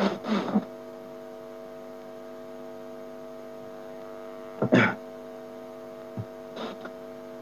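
Steady electrical mains hum, several even tones held level, with a few short voice sounds: one at the very start and one a little before five seconds in.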